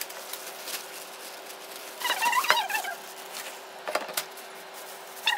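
Plastic bags and clear plastic wrapping rustling and crinkling as they are handled, with a few short high squeaks about two seconds in and again near the end, over a faint steady hum.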